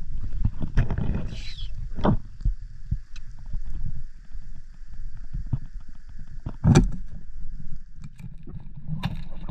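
Muffled, rumbling underwater sound picked up through a camera's waterproof housing, with scattered clicks and a few louder bursts, one about seven seconds in, over a faint steady high hum.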